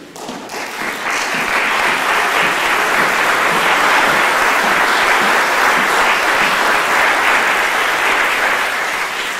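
Audience applauding: it swells over the first second, holds steady, and begins to die away near the end.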